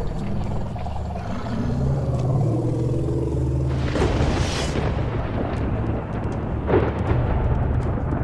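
Documentary background music with a steady low drone, swelling into a brief noisy surge about four seconds in and again near seven seconds.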